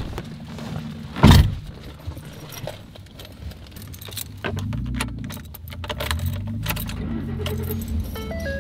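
Keys jangling on a key ring as they are handled in a Ford pickup's cab, with a loud thump about a second in and a low rumble from about four and a half seconds. A few stepped electronic beeps near the end, as the key goes into the ignition.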